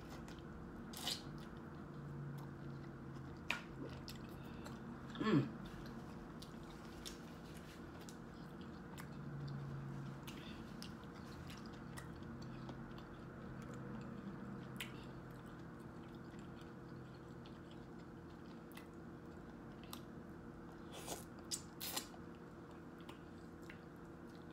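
Close-up chewing and biting of seafood, green mussels, with scattered wet mouth clicks and smacks over a steady low hum. One louder brief sound comes about five seconds in.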